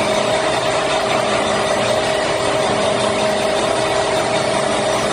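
CNC lathe running steadily, a constant mechanical hum with a steady whine over it.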